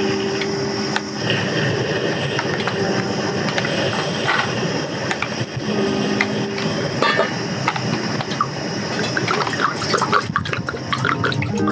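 Single-burner camping gas stove burning at a strong flame with a steady hiss. Near the end, water is poured from a bottle into a metal pot sitting on the burner, splashing in.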